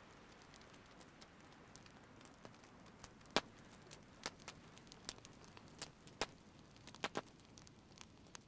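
Open wood fire crackling with scattered sharp pops as meat roasts over it on a stick. The sound is faint, the pops come irregularly and grow more frequent after about three seconds, and the loudest pop falls near the middle.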